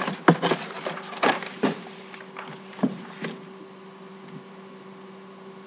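A run of sharp knocks and scraping rubs over the first three seconds or so, a few with short downward-sliding tails. Then only a steady low hum.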